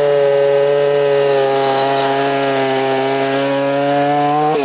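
Chainsaws cutting through ash logs: a Stihl MS170 two-stroke gas chainsaw held at full throttle in the cut, with a steady high engine note, alongside a Dewalt 60V electric chainsaw. Right at the end the throttle is let off and the engine note falls away.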